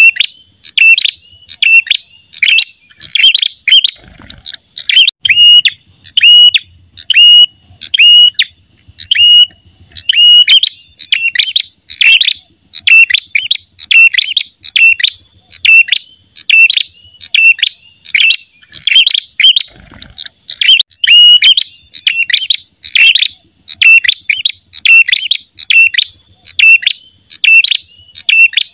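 Ashy tailorbird (prenjak kepala merah) giving its loud, aggressive fighting song: sharp, high chirping notes repeated about twice a second without a break.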